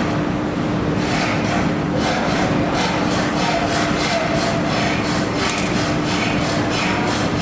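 Handheld welding machine running during a weld: a steady machine hum with a constant low tone and a rhythmic hiss pulsing about three times a second.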